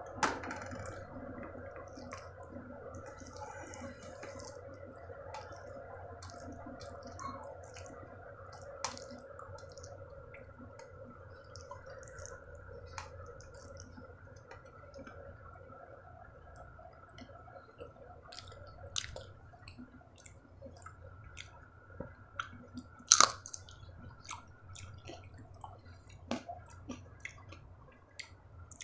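Close-up eating sounds of sabudana khichdi with curd, eaten by hand: wet mouth smacks and chewing with many short, sharp clicks, the loudest about 23 seconds in. A faint steady hum runs underneath.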